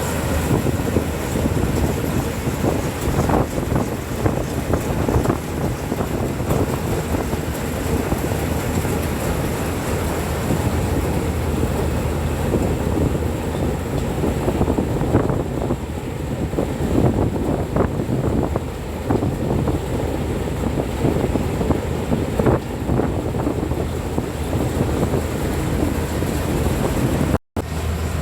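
Paddy combine harvester running steadily, a continuous low engine and machinery drone, with wind buffeting the microphone. The sound drops out for a moment near the end.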